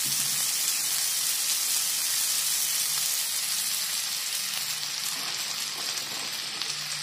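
Vegetables and idli pieces sizzling in hot oil in a non-stick frying pan, a steady hiss that fades slightly toward the end.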